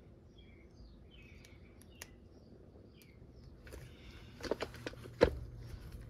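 Faint bird chirps in the background, then a quick series of sharp clicks and a knock about four and a half to five seconds in as the parts of a die-cast toy tractor are handled.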